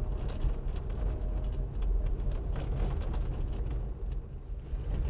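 Cabin noise of a 2005 Suzuki Jimny on the move: a steady low engine and road drone with light rattles and clicks.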